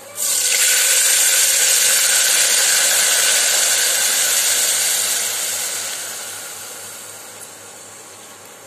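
Loud sizzling as soaked chana dal is poured into hot oil in an aluminium pressure cooker. The sizzle starts suddenly, holds steady for about five seconds, then dies away gradually.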